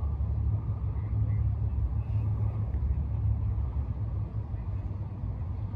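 Low, steady outdoor rumble with a faint hiss above it.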